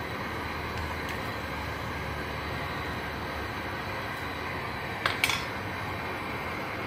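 Steady rushing noise of a pot of fish soup heating on a gas burner, with a short double clatter about five seconds in as the plastic ladle is taken out and set down.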